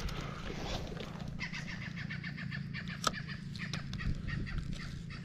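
A bird calling in a rapid run of repeated notes, with one sharp click about three seconds in.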